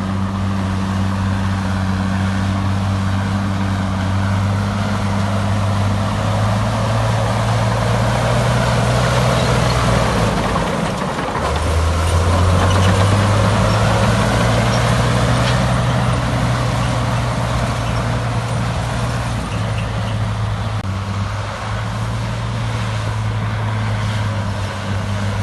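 Heavy construction machine's diesel engine running steadily under work; about eleven seconds in the note dips for a moment, then comes back louder and slightly higher as the engine takes up load again.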